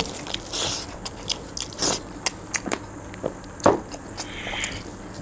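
Close-up eating sounds: wet chewing and irregular mouth clicks and smacks, with fingers mixing rice and curry on steel plates, a few clicks louder than the rest.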